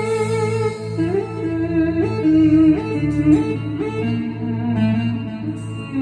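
Sampled clarinet voice on a Korg Pa4X arranger keyboard (Juzi sound set) playing an improvised taksim melody, with notes that scoop up into one another over a steady low drone.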